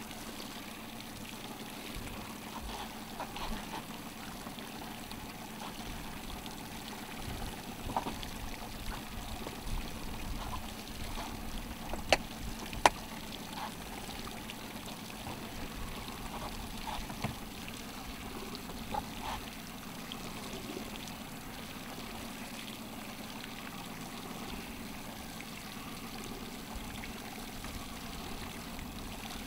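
Water sloshing and lapping against the hull of a fishing boat, steady throughout, with a low hum underneath. Two sharp clicks come a little under a second apart near the middle.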